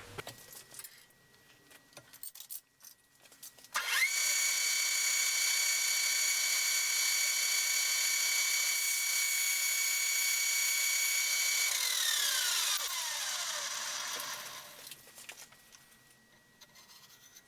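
An electric shop-tool motor whines up to speed about four seconds in, runs at a steady high pitch for about eight seconds, then winds down with a falling pitch over a few seconds.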